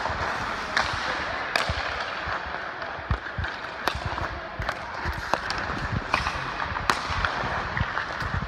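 Ice hockey skate blades scraping and carving on the ice, with several sharp cracks of a stick hitting the puck as it is handled and passed.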